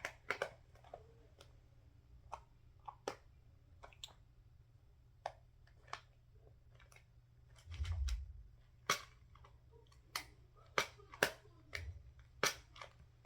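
Irregular sharp plastic clicks and taps as a box of nail tips for a practice hand is handled and pressed, the box too full of tips to close. There are two dull bumps, the louder about eight seconds in.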